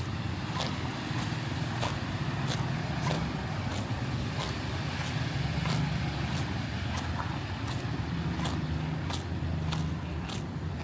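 Steady rumble of road traffic engines, with short sharp footsteps at an even walking pace, about one every half second or so.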